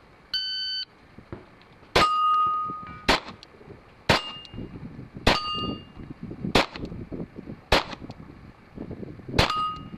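A shot-timer beep sounds once, briefly, as the start signal, then a pistol fires seven shots about a second apart, several of them followed by the ring of a steel target plate being hit.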